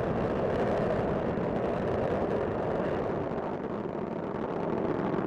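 Steady rumbling noise of Space Shuttle Discovery's solid rocket boosters and main engines during ascent, less than half a minute after liftoff. It eases slightly partway through and then builds again.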